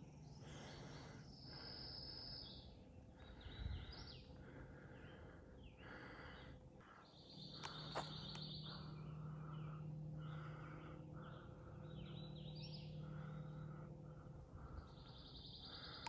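Woodland birds singing, with a short trill repeated about every seven seconds among smaller chirps, over a faint low hum that swells in the middle.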